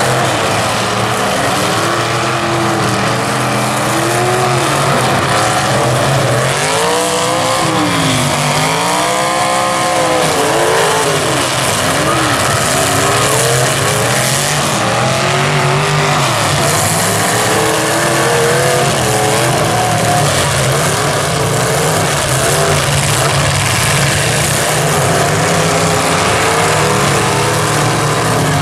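Several full-size demolition derby cars' engines revving in the arena, their overlapping pitches rising and falling, over a steady din of noise from the packed grandstand crowd.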